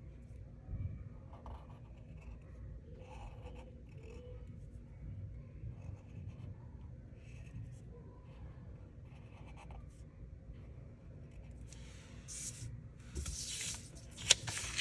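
Felt-tip permanent marker drawing on paper in short, separate strokes as black outlines are traced over. Near the end the paper sheet is slid and turned on the table with a louder rustling hiss, and there is one sharp tap.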